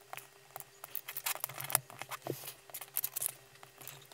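Light clicks, taps and small rattles of small electronic boards, wires and a soldering iron being handled on a workbench mat, over a faint steady hum.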